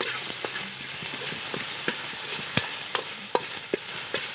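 Chopped tomatoes frying in oil in a wok with a steady sizzle, while a spoon stirs them, knocking against the pan irregularly about two or three times a second.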